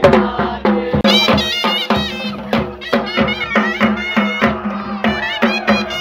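Pahari folk music for a nati dance: drums beaten in a steady, fast rhythm, about four strokes a second. About a second in, a reedy wind instrument joins with a wavering high melody.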